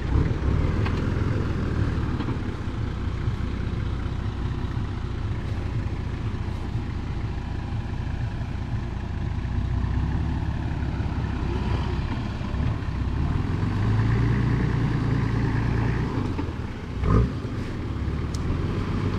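A 4WD vehicle's engine working hard under load, revving up louder partway through as it crawls through a deep hole in the track, with a short knock near the end.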